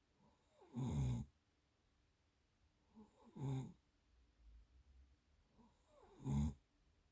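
Snoring in sleep: three snores, each about half a second long, coming every two and a half to three seconds.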